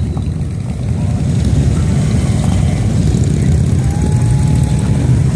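A line of touring motorcycles riding slowly past, their engines running together in a steady low drone.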